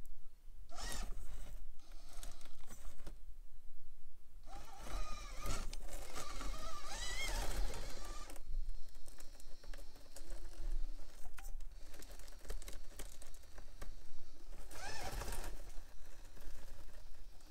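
Traxxas TRX4M mini RC crawler's small electric motor and geartrain whining in bursts, the pitch sliding up and down with the throttle as it climbs under load. Tyres scrabble and knock on the hard steps between bursts.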